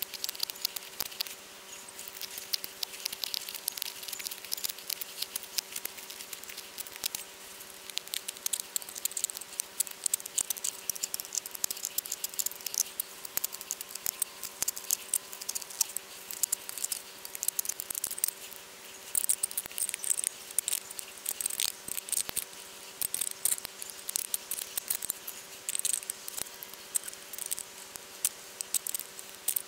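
A multi-tool cutting and working through the thin metal wall of a tin can to open a feed door for a hobo stove: a dense, irregular run of small scratching clicks and crunches, with sharper flurries at several points.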